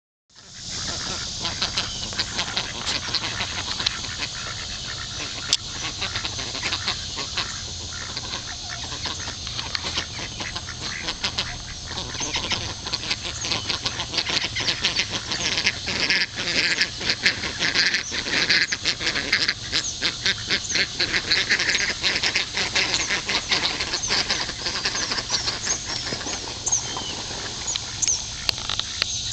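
A flock of Indian Runner ducks quacking and chattering in rapid, overlapping calls, busiest in the middle stretch.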